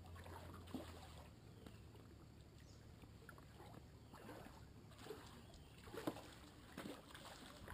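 Near silence: faint scattered knocks and clicks of fishing gear handled in a boat, with a low hum that stops about a second in.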